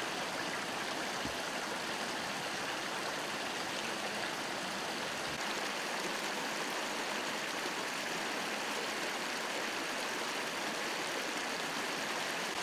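Water from a broken water main pouring over a lip of broken asphalt into the flooded street, a steady splashing rush.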